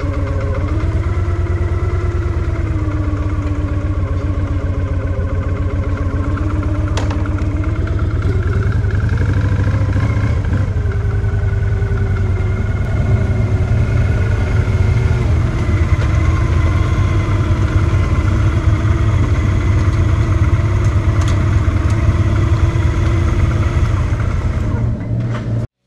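Victory V92SC Sport Cruiser's V-twin engine running steadily, with a dense low firing pulse. It gets a little louder about halfway through and cuts off suddenly at the end.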